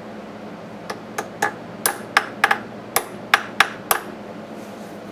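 Hammer tapping a screw extractor deeper into a snapped-off bolt in a 1930 Briggs & Stratton Model FH engine part: about ten sharp metal-on-metal strikes, starting about a second in and ending near four seconds.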